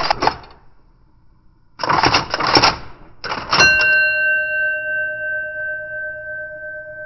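IBM Selectric III electric typewriter typing in short bursts of rapid, clattering keystrokes. About three and a half seconds in, a bell chimes and rings on, slowly fading.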